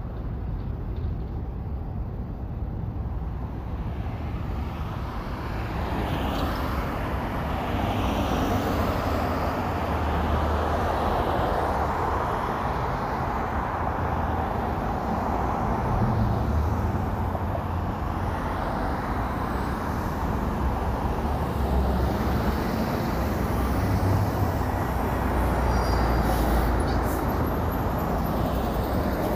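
Road traffic ambience: a steady hum of passing vehicles with a low rumble, growing louder about six seconds in.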